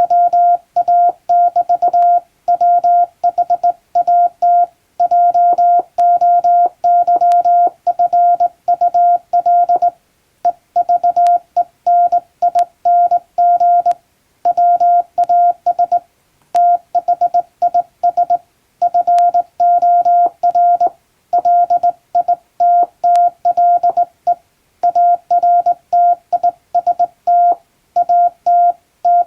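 Morse code sent by hand on a straight key: a steady, mid-pitched beep keyed on and off in short and long elements (dots and dashes), with brief pauses between letters and words.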